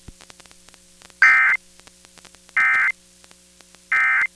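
Weather radio sending three short, identical bursts of SAME digital data tones, a harsh two-tone warble, evenly spaced over a faint steady hum. Coming straight after the warning text ends, these short bursts are the end-of-message code that closes the alert.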